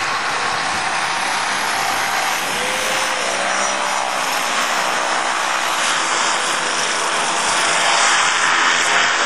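Light aircraft's piston engine and propeller running, its note rising about three seconds in and growing louder near the end.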